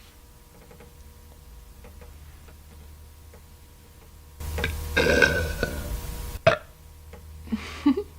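A woman's loud, long belch, about two seconds, beginning about four seconds in. It is followed by a sharp click and a shorter, softer sound from the throat near the end.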